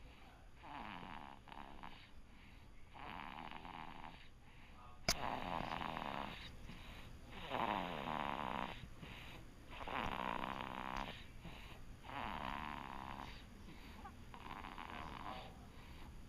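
A sleeping child snoring, with a rattly breath about every one to two seconds. There is one sharp click about five seconds in.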